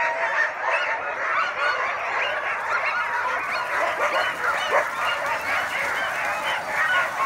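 Many sled dogs yelping and barking at once in a continuous, dense chorus of overlapping high calls: excited teams at a race start, straining to run.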